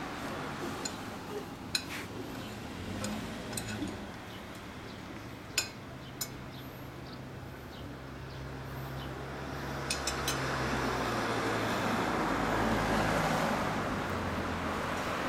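Street traffic, with a vehicle passing by that is loudest from about ten to fourteen seconds in, and a few sharp light clicks scattered through.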